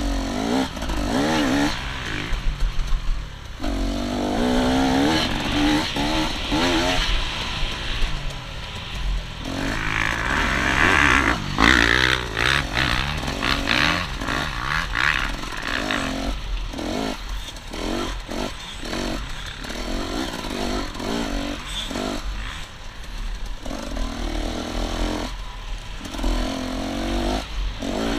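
Enduro dirt bike engine being ridden hard, its pitch rising and falling as the throttle opens and closes through the gears. From about halfway through, the throttle is worked in quick short bursts.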